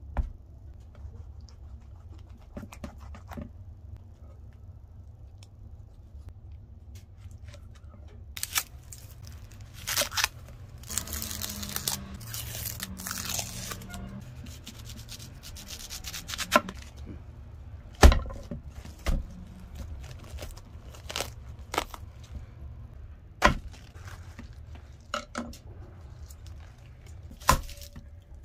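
Dry onion skin being peeled and torn off by hand over a wooden cutting board, a rustling, papery tearing, with a few sharp knocks later on.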